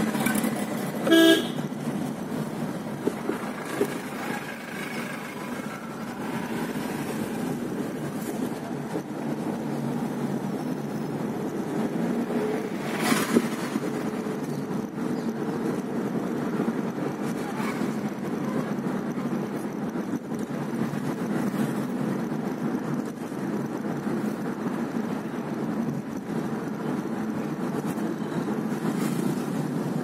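Steady engine and road drone of a car heard from inside the cabin as it drives through traffic. A short vehicle horn toot sounds about a second in, and there is a single sharp knock about halfway through.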